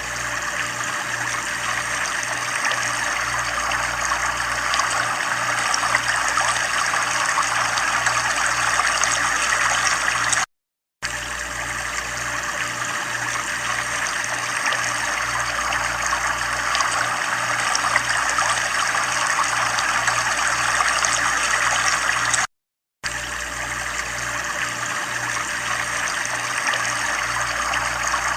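Steady running, trickling water, with a low hum underneath that pulses about twice a second. It cuts out completely for about half a second twice, once a little before the midpoint and again near the end.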